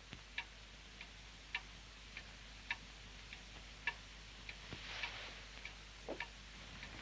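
Faint clock ticking steadily, a little under two ticks a second, with one duller knock near the end.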